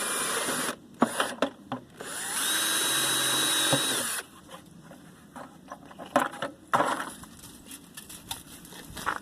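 An electric power tool runs twice in short bursts, once at the start and again for about two seconds from around the middle, the second run with a steady high whine. Between and after the runs come sharp metal knocks and clatter.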